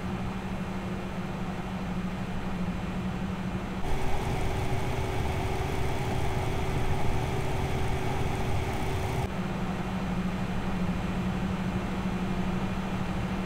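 PC CPU coolers running in three back-to-back noise recordings. First a be quiet! Dark Rock Pro 4 air cooler's fans run at stock with a steady low hum. From about four to about nine seconds in, a Corsair 280 mm AIO liquid cooler's radiator fans and pump run louder, with more air noise, and then the Dark Rock Pro 4 runs again with the CPU overclocked, back to the quieter steady hum.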